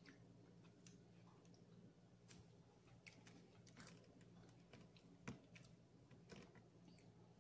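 Faint, scattered clicks and small eating sounds from someone picking at and chewing a whole fish, over a low steady hum; the sharpest click comes about five seconds in.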